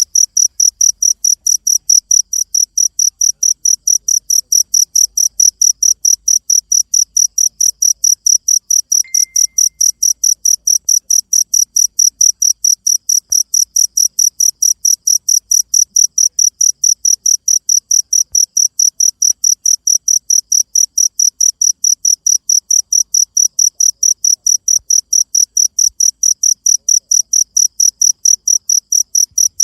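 Cricket chirping, a shrill, very regular pulse repeated about four to five times a second without a break.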